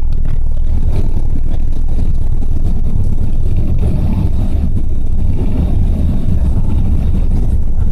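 Airbus A380 cabin noise during takeoff: a loud, steady low rumble of the engines at takeoff thrust as the jet rotates and climbs away from the runway.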